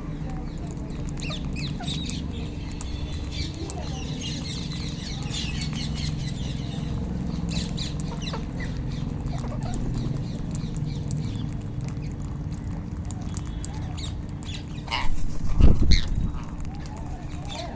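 Wild Indian ringneck parakeets (rose-ringed parakeets) squawking and screeching in a feeding flock, many short, sharp calls overlapping, over a steady low rumble. About fifteen seconds in, a loud low thump briefly drowns everything.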